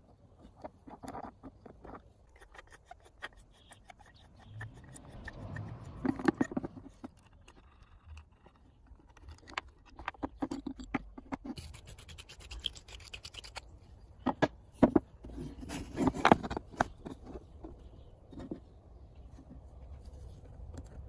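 Hand handling of an old wooden bookbinder's plough: scattered scratches, scrapes and clicks of wood and rusty metal parts as its wooden screw is turned and the parts are moved, with a few louder knocks along the way.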